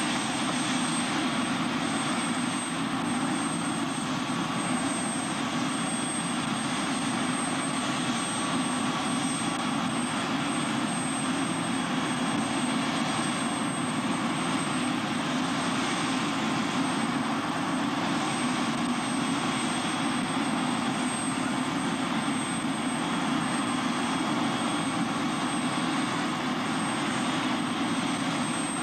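Small helicopter running steadily on the ground after landing: a constant engine and rotor sound with a thin, steady high whine over it.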